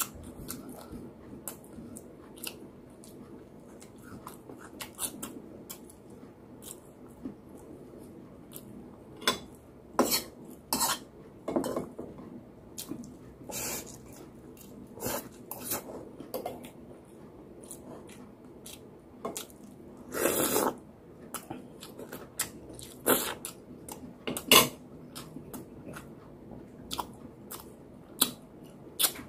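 Close-miked eating: chewing, with a metal spoon and fork clicking against a ceramic bowl and plates in irregular sharp clicks. One longer noisy sound comes about two-thirds of the way through.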